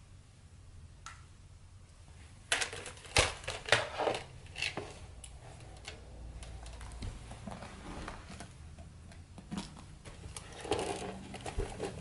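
Hard plastic toy dinosaur figures knocking and clattering as they are handled and moved. A quick run of knocks and rattles starts a couple of seconds in, scattered taps follow, and another cluster comes near the end.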